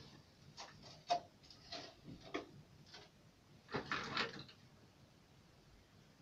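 Handling noise at a studio desk: a scattered series of sharp clicks and knocks, with two brief rustling bursts, over the first few seconds.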